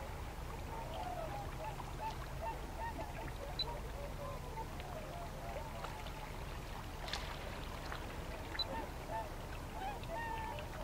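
A flock of waterfowl calling: many short calls overlapping one another, over a steady low rumble.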